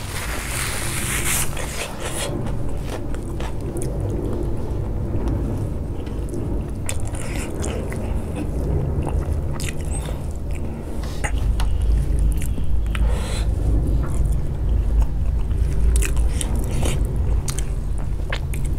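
Close-up chewing of mouthfuls of rice and pork curry eaten by hand, with scattered wet mouth clicks and smacks. It gets a little louder in the second half.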